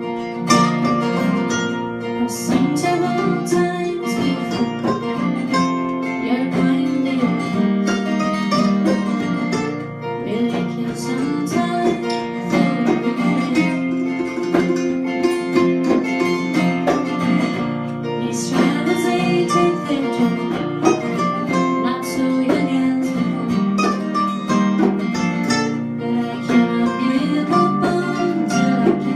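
Live acoustic band playing a bluegrass-style song: strummed and plucked acoustic guitar with other plucked strings, and singing.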